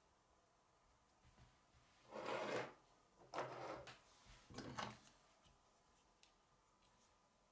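Plastic K'nex pieces scraping and rubbing against a wooden tabletop in three short bouts, about two, three and four and a half seconds in, the second starting with a sharp click.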